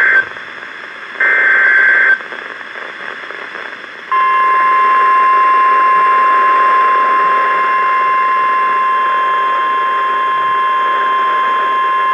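NOAA Weather Radio EAS alert over a hissy radio: the end of one burst of SAME header data at the start and another full burst about a second in, both harsh buzzing digital squawks, then radio hiss. About four seconds in, the steady single-pitched 1050 Hz Warning Alarm Tone begins and holds.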